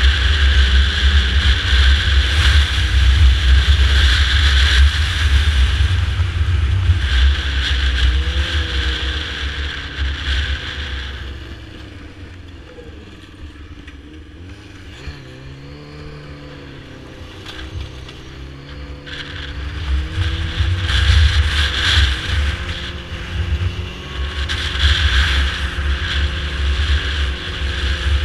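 Yamaha snowmobile running at speed along the trail, engine and track loud. About twelve seconds in it eases off to a lower idle-like rumble with the pitch dipping and wavering, then picks up speed again some seven seconds later.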